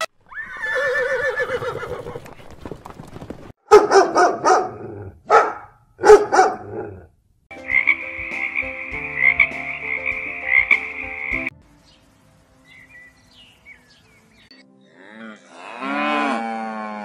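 A string of separate animal calls: a horse whinnying with a quavering pitch, then several loud croaking frog calls and a steady pulsing frog call lasting a few seconds, then, after a short lull, a cow mooing with a falling pitch near the end.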